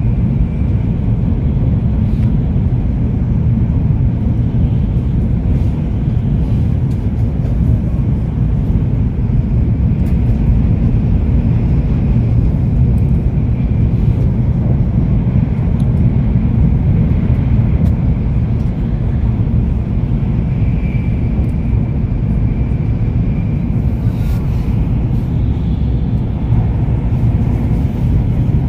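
Steady low rumble of a Joetsu Shinkansen bullet train running at speed, heard from inside the passenger cabin, with a faint high whine coming and going.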